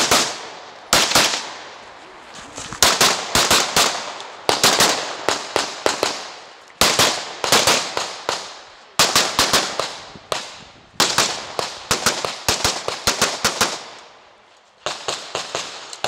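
Open-division competition pistol fired in fast strings of shots, clusters of two to six sharp reports with short pauses between as the shooter moves from one shooting position to the next, each report ringing out briefly.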